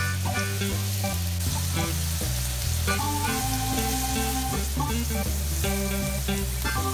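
Chopped onions sizzling in oil in a cast iron skillet. Background music with a moving bass line and held notes plays over the sizzle.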